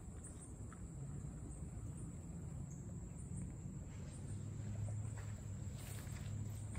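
Outdoor summer ambience: a steady high insect drone with faint repeating chirps, over a low steady hum that grows a little stronger about four seconds in.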